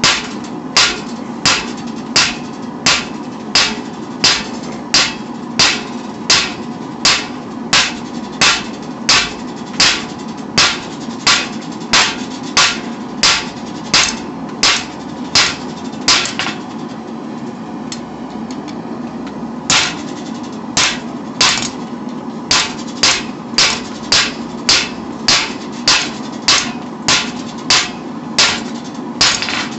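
Hand hammer striking hot steel on an anvil, forging out a knife blade: steady blows about two a second, with a pause of about three seconds just past halfway before the hammering resumes.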